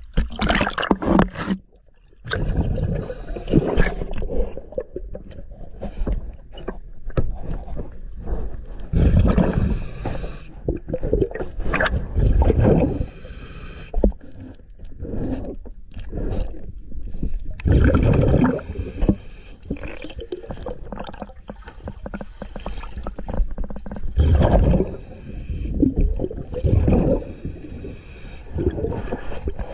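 A diver breathing underwater through a regulator. Loud gurgling, rumbling bursts of exhaled bubbles come every few seconds, with quieter stretches between breaths.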